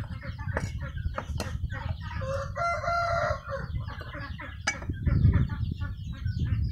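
Cleaver mincing fish on a wooden chopping block, a quick run of knocks and thuds. About two seconds in, a rooster crows once, for over a second.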